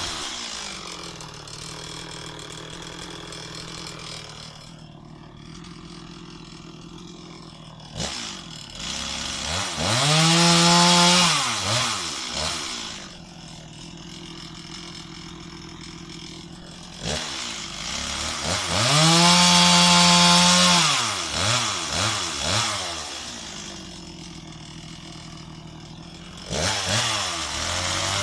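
Stihl MS 260 two-stroke chainsaw idling, then revved up to high speed and held there for a few seconds before dropping back to idle. This happens twice, and it revs up a third time near the end.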